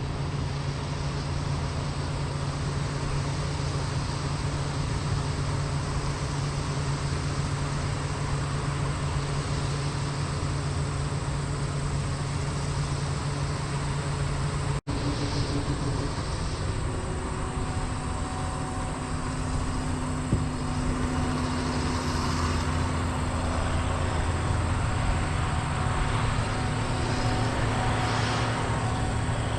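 Diesel engine of large harvest machinery running steadily. About halfway through the sound cuts briefly, then a different steady engine drone carries on.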